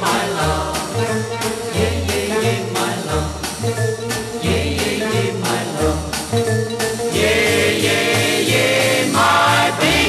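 Early-1960s pop record: a steady beat of bass and drums under singing, with held, harmonised voices over the last few seconds.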